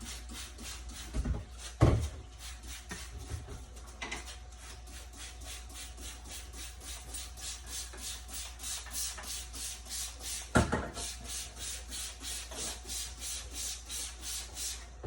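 High-pressure spray blasting dirt off dehumidifier parts, a hissing spray that pulses evenly about four times a second. Two louder knocks of the parts being handled, about two seconds in and again about ten seconds in.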